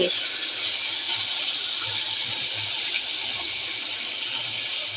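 Spice paste sizzling steadily in oil in a kadai, an even hiss. The masala is fully cooked down, with the oil separating out of it.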